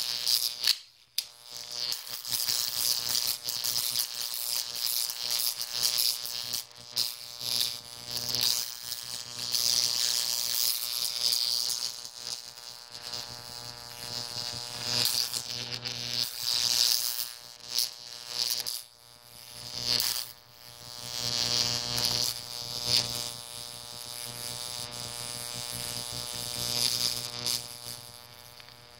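High-voltage electric arc from a 15,000-volt transformer, drawn from a copper-tipped electrode onto dry concrete mix. It gives a steady electric buzz with a fizzing, crackling hiss that swells and fades. It cuts out abruptly about a second in, and falters twice about two-thirds of the way through.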